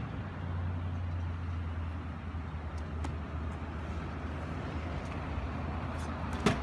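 Kick scooter's wheels rolling over a concrete sidewalk with a steady low rumble and a few light clicks, then one sharp clack near the end as the rider lands a jump.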